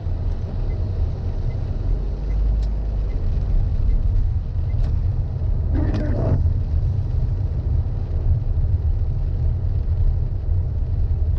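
Steady low road and engine rumble inside a moving car's cabin, with a single windshield wiper sweep across the wet glass about six seconds in, heard as a short rubbing sound.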